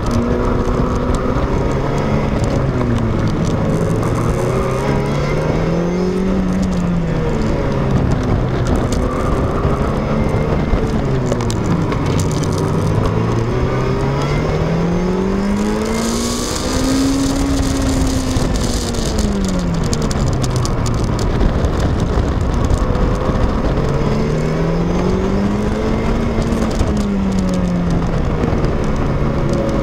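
A car's engine heard from inside the cabin while lapping a race circuit, its pitch climbing under acceleration and dropping as the driver slows for corners, several times over. Around the middle a brief hiss rises over the engine note.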